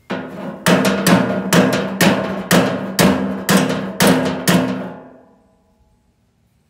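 Riding lawn mower's engine being cranked by its electric starter: a steady starter whine with a heavy stroke about twice a second, dying away after about five seconds without the engine catching.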